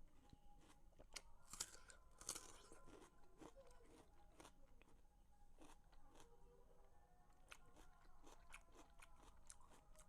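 Close-up chewing and biting of watermelon: a run of small wet crunches and mouth clicks, with two louder crunchy bites a little past a second in and again around two seconds in.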